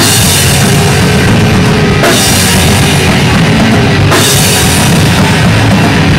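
A live punk rock band playing loud, with distorted guitar, bass and pounding drums and no vocals. Crash cymbal hits open a new bar about every two seconds.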